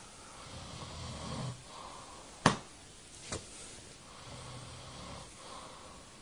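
A sleeping man snoring in slow, rasping breaths. Between two snores come two sharp smacks of a flyswatter, the first loud and the second weaker, under a second later.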